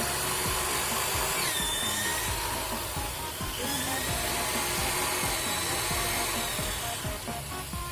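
Drilling machine running and drilling, a steady harsh noise with a few brief gliding squeals as the bit cuts. Background music plays under it.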